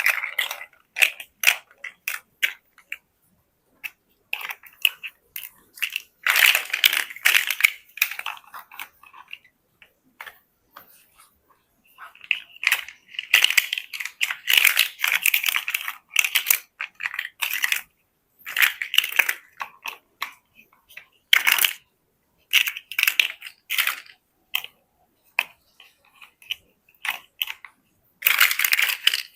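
Plastic building bricks clicking and rattling as pieces are handled and pressed together, in bursts of quick clicks with short silent pauses between them.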